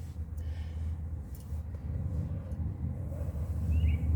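A low, steady rumble that grows louder in the second half, with a brief bird chirp near the end.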